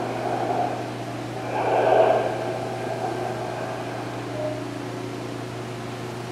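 Diver breathing underwater through a full-face mask regulator, with a surge of exhaled bubbles about two seconds in, over a steady low hum.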